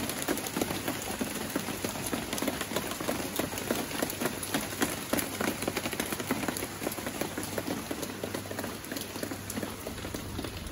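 Heavy typhoon rain coming down in sheets: a dense, steady patter of drops hitting surfaces close by.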